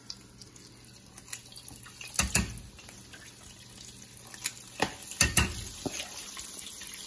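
Hot frying oil in a cast iron Dutch oven sizzling as spoonfuls of hush puppy batter are dropped in, the sizzle growing louder in the second half. A few sharp clicks and taps from the metal scoop come in between.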